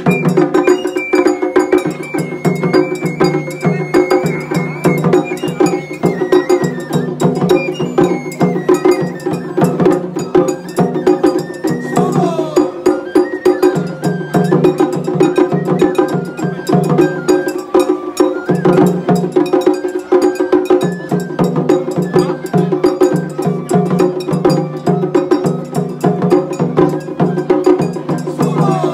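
Japanese festival hayashi music from a float: taiko drums beaten in a fast, steady rhythm, with a high melody line of held notes over them.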